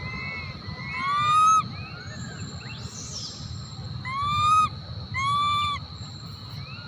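Young macaque crying: three loud, high, drawn-out whimpering calls, each rising a little, about a second in, at about four seconds and just after five, with fainter cries in between.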